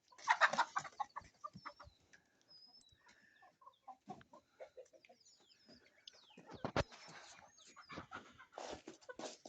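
Chickens clucking softly, with thin high peeps, among rustling and a couple of sharp knocks.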